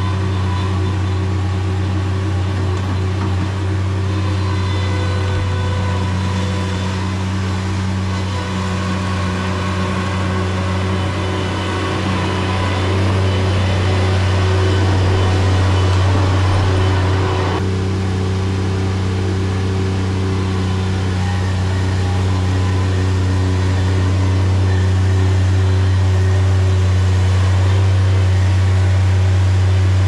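Bobcat MT100 mini skid steer's engine running steadily under throttle. A rushing noise over the hum drops away suddenly a little past halfway, while the engine keeps running.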